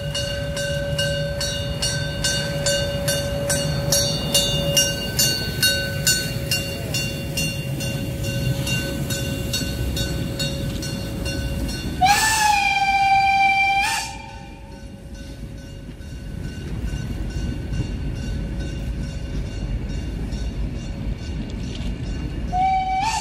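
Narrow-gauge steam locomotive 99 331 ringing its bell in rapid strokes, about three a second, fading out after about six seconds, over the low rumble of the passing train. About twelve seconds in, its steam whistle gives a loud blast of about two seconds that swoops up at its start, and a second blast begins right at the end. This is the warning signal the train must give where it crosses the main access road from the car park to the ferry.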